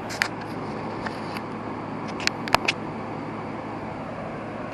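A few short, sharp clicks and clinks from hand work on a motorcycle's front fork: one just after the start, one about a second in, and a quick cluster of three, the loudest, about two and a half seconds in, over a steady background hiss.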